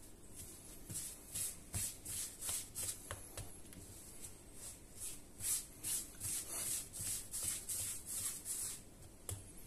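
Hands rubbing and rolling pizza dough into balls on a floured granite worktop: soft, quick rubbing strokes, about two a second.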